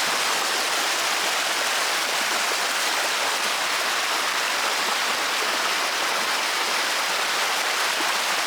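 Steady rush of flowing water: a small waterfall and stream pouring into a clear pool, even and unbroken.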